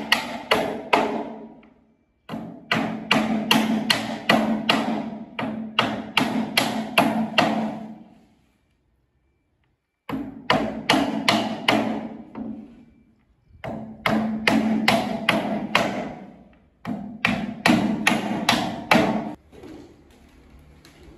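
A mallet tapping a long stone-look decorative panel down into its mortar bed, in quick runs of sharp knocks, about five a second, each ringing briefly. The tapping stops for a couple of seconds about eight seconds in and again later, and fades to quieter handling sounds near the end.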